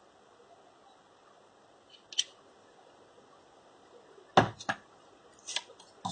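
Sharp clicks and taps from small tools and phone parts being handled: one light high click about two seconds in, then a few louder clicks from about four seconds on.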